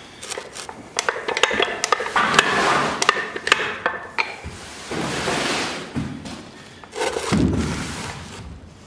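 Metal clinks and knocks, some with a short ring, as a railroad track jack is set and adjusted by hand against a shipping container's steel bottom rail. Later come longer scraping, crunching noises.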